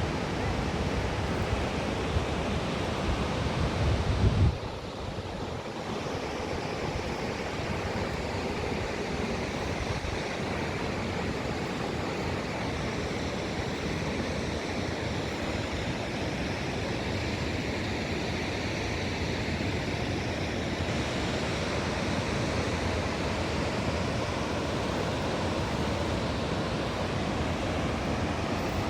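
Steady roar of Jog Falls, a high waterfall, heard as an even wash of falling water. Wind buffets the microphone with a low rumble for about the first four and a half seconds, then stops.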